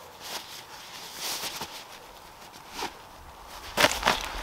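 Scattered rustling and scuffing, with two sharp knocks close together near the end.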